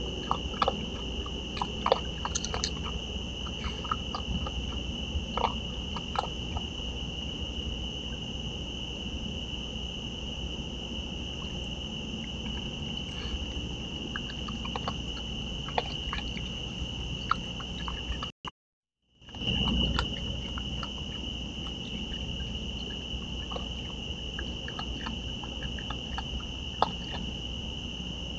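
Steady high chirring of crickets, with scattered clicks and crunches of an opossum and a raccoon eating dry food from dishes. The sound drops out briefly about two-thirds through.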